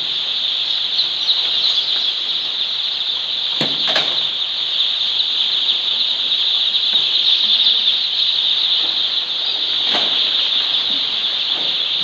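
Hundreds of day-old chicks peeping together in a dense, unbroken high-pitched chorus. A few sharp knocks cut through it, two close together about four seconds in and one near ten seconds.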